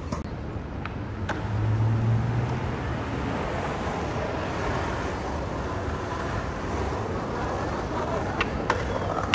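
City street traffic noise: steady road rumble, with a passing vehicle's low hum between about one and three seconds in, and a few sharp clicks near the end.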